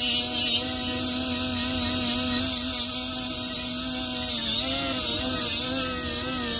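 Milwaukee battery-powered brushless die grinder running at its high-speed setting with a steady whine; the pitch dips briefly about four and a half seconds in, then recovers.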